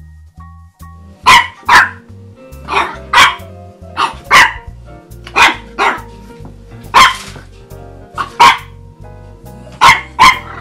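French bulldog puppy barking: about a dozen barks, mostly in quick pairs, starting about a second in, over background music.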